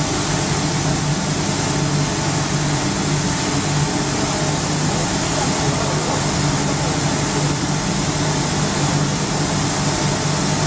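Pilot LHXT400 automatic wood line painting machine running steadily: a low motor hum under a constant hiss from its air-fed spray system as strips feed through.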